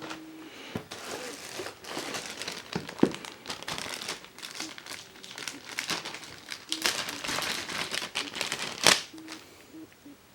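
Packaging being handled, crinkling and rustling almost continuously, with sharper crackles about three seconds in and again near the end.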